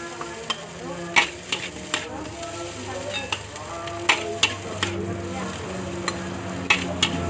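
Nasi goreng frying in a wok: a steady sizzle, with a metal spatula clanking against the wok in irregular sharp strikes as the rice is stirred and tossed.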